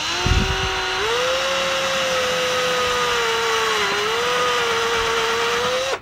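Cordless drill boring a 7/32-inch hole through a masonite panel: the motor whine steps up in speed about a second in, sags briefly under load about four seconds in, and stops at the end.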